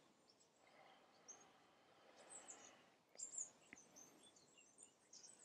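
Near silence: faint outdoor room tone with a few brief, distant bird chirps.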